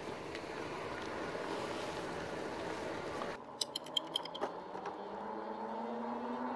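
Riding noise of a RadRover electric fat-tire bike: a steady rush of wind and tyre noise. About three seconds in, it drops suddenly to a quieter bed with a quick run of light clicks and a faint low hum rising in pitch.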